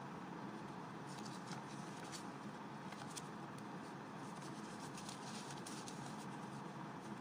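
Saudi riyal banknotes being thumbed through and counted by hand: soft, irregular papery flicks and rustles over a steady background hiss, bunched in several short flurries.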